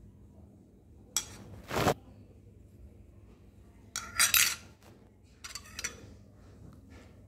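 Metal spoon scraping and clinking against a bowl in short bursts: twice about a second in, a louder cluster around four seconds in, and a few more near six seconds.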